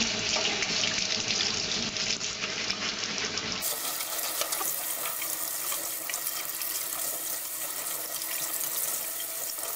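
Kitchen tap running in a steady stream onto crosnes (Chinese artichoke tubers) in a stainless steel mesh strainer in a steel sink, as the tubers are rinsed by hand.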